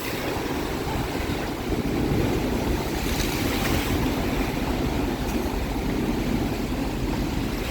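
Strong wind and heavy waves of a storm, with the wind rumbling on the phone's microphone.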